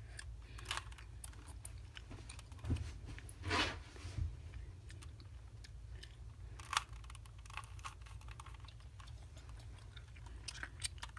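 A plastic Rubik's Cube being twisted by hand: irregular light clicks and clacks of the layers turning, a few louder clacks among them.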